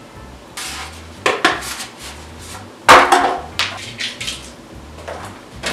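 Hard plastic parts of a QIDI X-Plus 3D printer knocking and clattering as they are handled, about eight separate knocks with the loudest a little before halfway.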